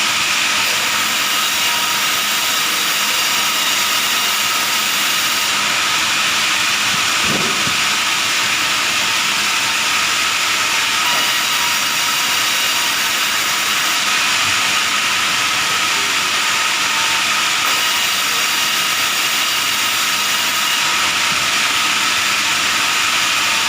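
A power saw for cutting wood into beams and boards, running steadily with an even whine and hiss.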